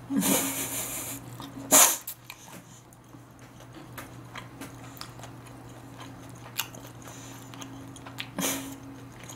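A dog barking a few times, the loudest bark about two seconds in and another near the end, over a steady low hum.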